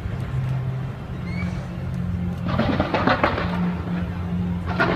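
Fireworks display going off continuously: a steady low rumble with clusters of crackling bursts about two and a half seconds in and again near the end.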